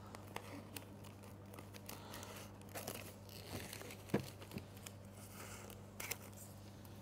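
Scissors snipping through cellophane wrap, with faint crinkling of the film as it is handled and scattered small clicks, the clearest about four seconds in. A low steady hum runs underneath.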